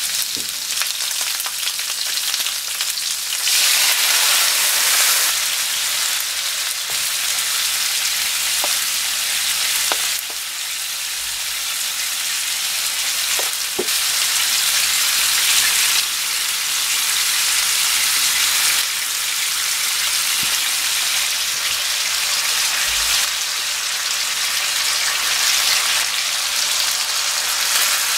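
Pieces of pork cartilage sizzling in oil in a nonstick frying pan. The hiss is steady, stepping up and down in level a few times, with a few faint taps.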